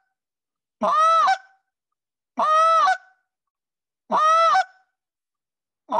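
Short-reed goose call blown in a drawn-out moan that breaks up into a short cluck at the end of each note. There are three such notes about a second and a half apart, and a fourth begins near the end.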